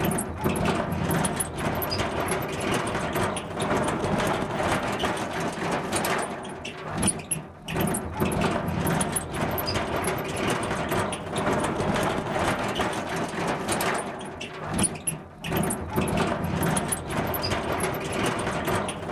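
Metal cart being rolled on squeaky metal wheels, rattling and squeaking steadily, with two brief lulls about seven and a half and fifteen seconds in.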